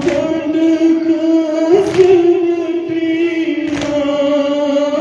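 A group of voices chanting a Muharram lament (nauha) for Imam Hussain in unison, holding long drawn-out notes. A short sharp beat comes about every two seconds.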